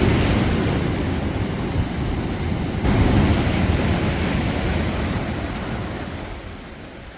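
Ocean surf washing against the shore: a steady rush of breaking waves that swells again about three seconds in, then slowly dies away.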